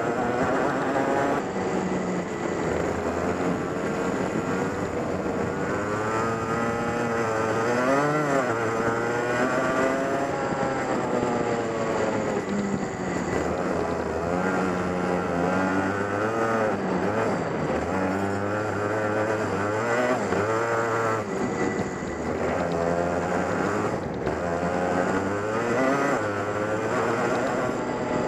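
Go-kart engine heard onboard, revving up and falling away over and over as the kart accelerates and brakes through corners.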